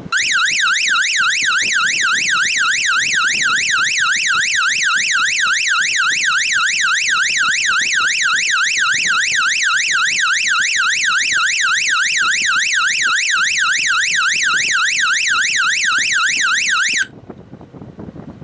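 Electronic alarm siren module sounding a loud, fast warbling wail, its pitch sweeping up and down about three to four times a second. It cuts off suddenly about 17 seconds in.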